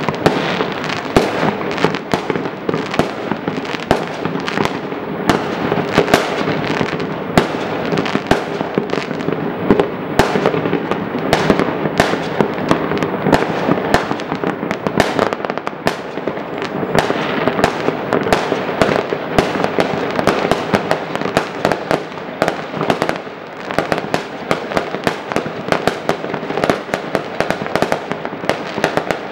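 Many fireworks and firecrackers going off at once across a city: a dense, continuous rattle of bangs and pops with no pause.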